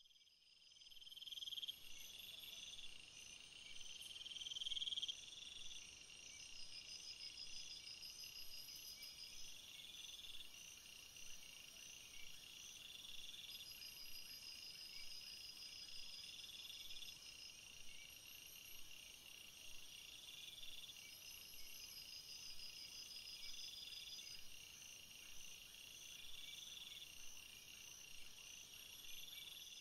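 Faint night insects chirping: several overlapping high-pitched trills and chirps repeating every second or two.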